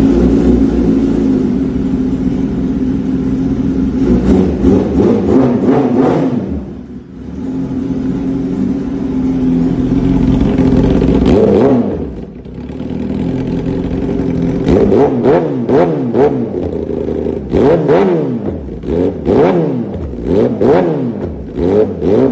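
Kawasaki ZX-10R's inline-four engine through an Austin Racing exhaust, idling and revved a couple of times in the first half. From about two-thirds of the way in it is blipped over and over, the revs rising and falling quickly.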